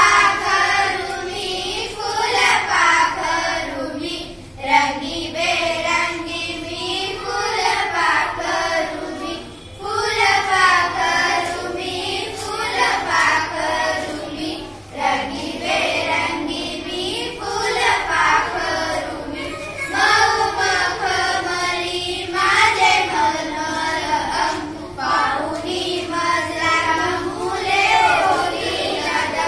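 A group of schoolgirls singing a Marathi children's poem together in unison, set to a tune and rhythm, in phrases of a few seconds with brief breaks for breath between them.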